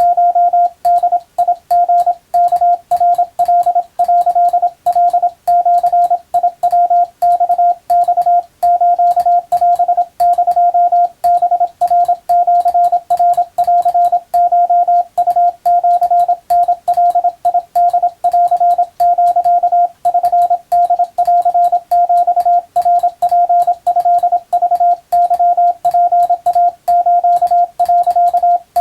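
Japanese wabun Morse code sent as a single steady mid-pitched beep, keyed on and off in a continuous run of short dots and longer dashes. Each element starts and stops with a faint click.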